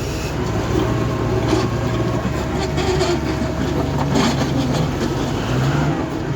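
Motor grader's diesel engine running steadily, with irregular clattering as it scrapes up asphalt.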